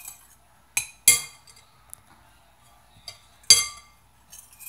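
Metal utensil stirring in a glass mixing bowl of liquid and clinking against its side: several sharp clinks with a bright ringing tail, the loudest about a second in and about three and a half seconds in.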